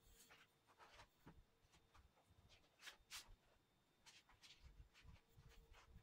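Faint, scattered soft scratches of kolam powder being trickled from the fingertips onto the floor as a line is drawn, over a quiet room.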